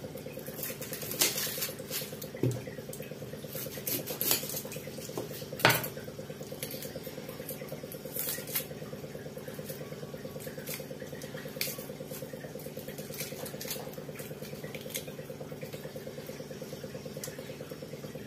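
Small kitchen knife clicking and scraping against a small onion as it is peeled by hand, with scattered sharp clicks and clinks, most of them in the first six seconds, over a steady low hum.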